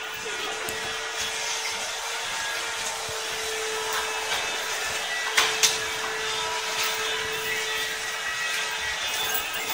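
A steady whirring hum with an even hiss over it, and two sharp clicks about five and a half seconds in.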